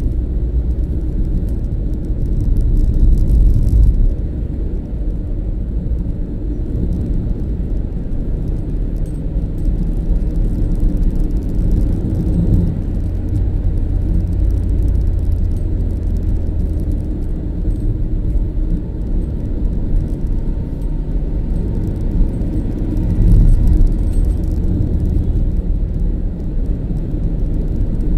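A moving car's engine and tyres heard from inside the cabin: a steady low rumble. It swells louder a few seconds in and again near the end.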